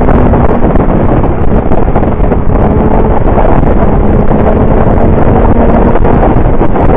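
Heavy wind rush over the microphone of a motorcycle riding at speed, with the bike's engine running at a steady pitch underneath.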